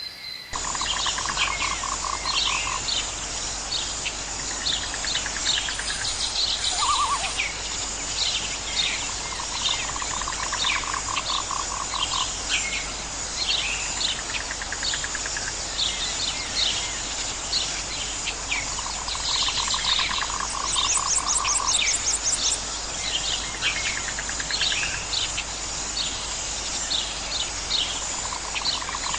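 Nature ambience of animal calls, starting abruptly just after the start: a pulsed trill about two seconds long that recurs every several seconds, over many short, quick bird chirps and a steady high insect hiss.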